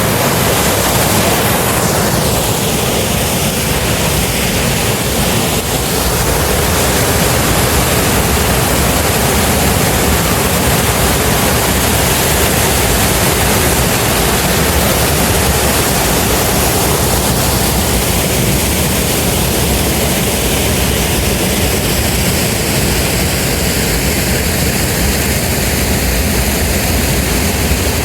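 Waterfall: water pouring steadily over a weir, a loud, even rushing noise.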